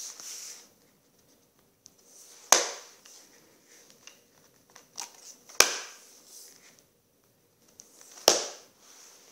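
Page strips of a spiral-bound split-page picture book being flipped over by hand, each landing with a sharp slap: four slaps, two of them close together in the middle, with light paper rustling between.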